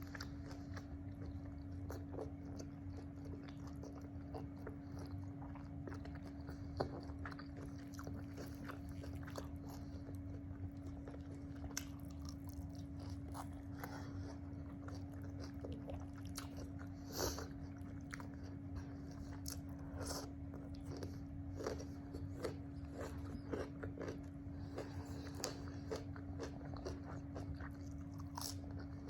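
Close-up eating sounds: chewing and biting with irregular wet, crunchy clicks of the mouth and food, over a steady low electrical hum.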